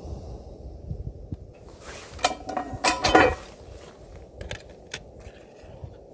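Hard objects clattering and clinking: a cluster of knocks with a short ring about two to three seconds in, then a few fainter clicks.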